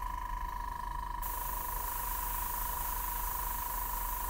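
Badger Sotar airbrush spraying, an even high hiss of air that starts about a second in and keeps on, over a steady high-pitched tone.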